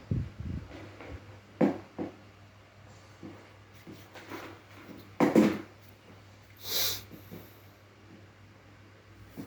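A young child coughing in short bursts: a brief cough about a second and a half in and a stronger one just past five seconds, with a short hiss near seven seconds.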